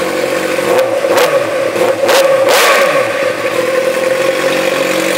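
2008 Suzuki GSX-R600's inline-four engine idling, then revved in quick throttle blips between about one and three seconds in, the revs rising and falling before it settles back to idle. It breathes through an aftermarket slip-on megaphone muffler with the factory catalytic converter still in place, and is fairly loud.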